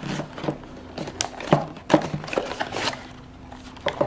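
Hands handling watch packaging: a clear plastic box and cardboard box and insert sliding and scraping, with irregular short clicks, taps and rustles. A faint steady hum runs underneath.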